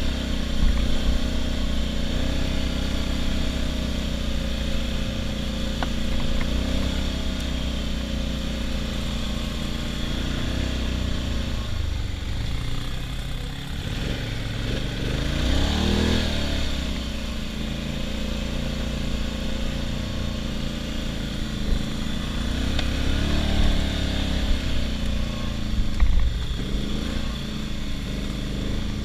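ATV engine running steadily while riding, its pitch climbing and then dropping as the throttle is opened and eased, once about halfway through and again near the end. A few sharp knocks come near the end.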